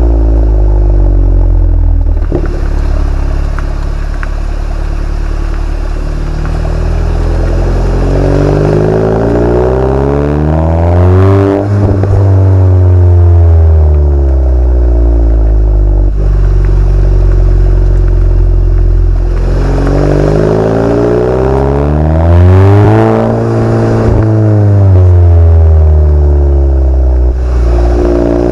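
Mk7 VW Golf GTI's 2.0-litre turbocharged four-cylinder, exhaust with its resonator deleted, being revved and let fall back several times, with steadier running between the revs.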